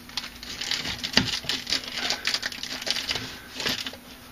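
Irregular scraping and rasping strokes from a hand tool working the edges of a small access hole cut in drywall.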